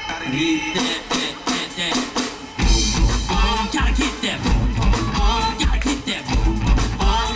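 Live band playing dance/hip-hop music, with a heavy bass-drum beat coming in about two and a half seconds in.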